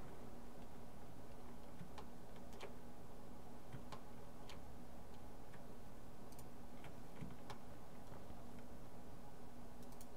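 Computer mouse and keyboard clicking: scattered, irregular sharp clicks, roughly one a second, as edges are shift-clicked and faces filled. A steady low hum runs underneath.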